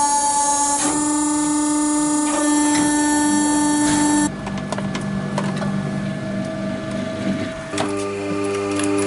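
Hydraulic hose workshop machines running: the steady, tonal hum of a hose crimping machine's electric motor and hydraulic pump. The tone changes abruptly about four seconds in and again near the end.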